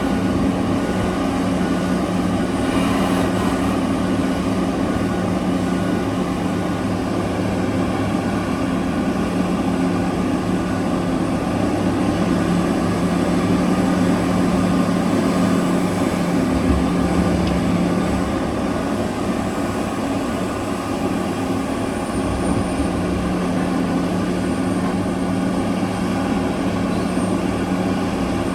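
Heavy mining machinery running at work: the large diesel engines of a mining excavator and haul truck give a steady, loud drone with a constant low hum.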